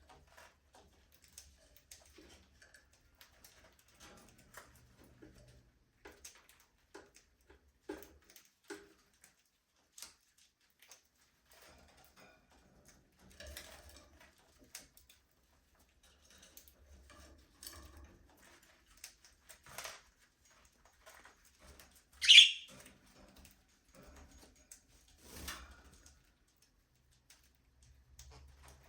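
Budgerigars in an aviary: a few soft, brief chirps among scattered faint clicks and scratches, with one loud, sharp call about three quarters of the way through.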